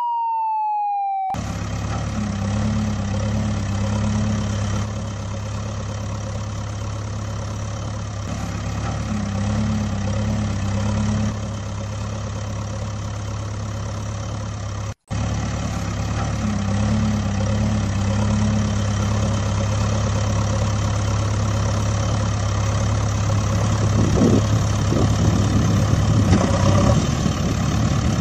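A falling electronic tone ends about a second in. Then a truck engine sound effect runs steadily, with a split-second break midway.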